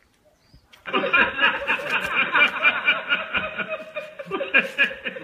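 Laughter with quick, evenly repeating ha-ha pulses, starting about a second in after a near-silent moment.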